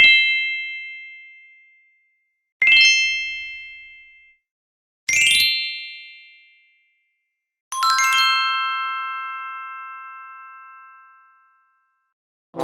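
Four separate chime-like ding sound effects, each struck sharply and ringing out, about two and a half seconds apart. The fourth is lower in pitch and rings on for several seconds.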